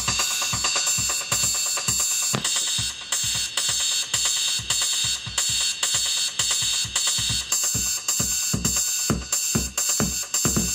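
Electronic music with a steady kick drum, hi-hats and cymbals, played through a 6x9 car speaker under test.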